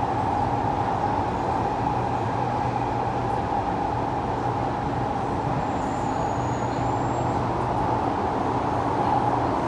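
Kawasaki C751B metro train running through the tunnel, heard inside the passenger car as a steady rumble with a humming drone. A faint high whistle sounds briefly about six seconds in.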